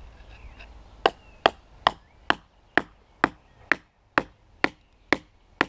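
Hammer blows driving a stake into the ground: eleven sharp, evenly paced strikes, about two a second, starting about a second in.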